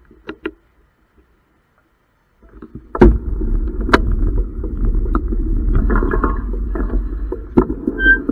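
Muffled rumble and rattle picked up through a bike-mounted camera's case as the e-bike rolls off over a rough, wet road surface, starting about two and a half seconds in after a near-silent pause. Sharp knocks come from jolts over bumps, the loudest at about three and four seconds in.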